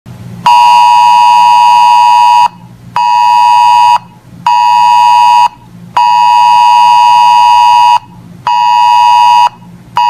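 Emergency alert attention tone, a loud two-tone beep sounding in the Wireless Emergency Alert rhythm. The pattern is one two-second blast, then two one-second blasts, with half-second pauses between them, and it repeats.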